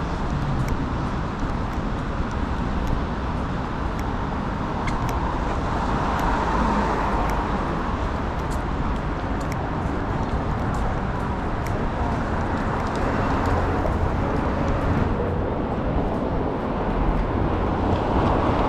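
City street traffic on rain-wet roads: a steady hiss of traffic, swelling several times as cars pass with their tyres hissing on the wet surface. Faint scattered ticks run over it.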